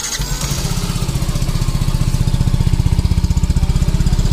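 Yamaha FZS V3 BS6's 149 cc single-cylinder air-cooled engine idling, heard close to its short, stubby exhaust as a steady, even, rapid pulsing.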